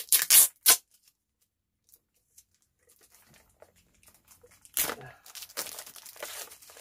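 Product packaging torn open and crinkled by hand: a few sharp rips right at the start, a pause of about four seconds, then steady crinkling from about five seconds in.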